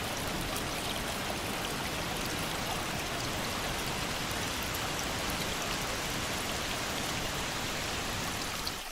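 Waterfall water rushing steadily, a dense even wash with fine splashing droplets. Just before the end the sound shifts, its deep rumble dropping away.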